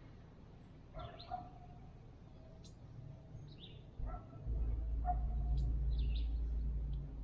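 Three short distant animal calls, with small birds chirping high and thin throughout. From about four and a half seconds in, a loud low rumble sits on the microphone.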